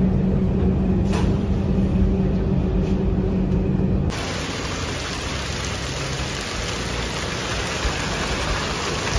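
Steady engine hum heard inside a vehicle's cabin with rain on the window; about four seconds in it cuts to the even hiss of heavy rain falling.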